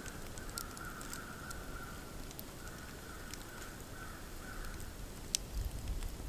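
Long log fire of white ash logs burning, with light scattered crackles and small pops and one sharper pop about five seconds in.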